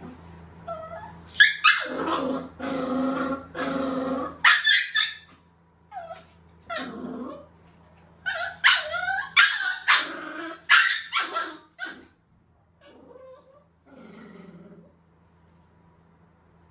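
A young Shih Tzu growling, barking and yelping in several bursts of calls that bend in pitch, protesting at being handled for grooming.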